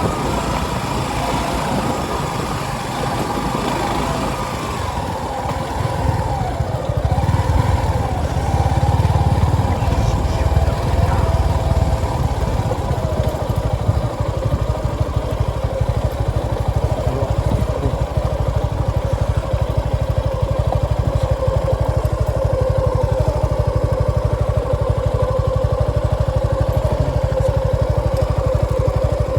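Motorcycle engine running, its pitch rising and falling with throttle and gear changes during the first dozen seconds, then holding a steady note.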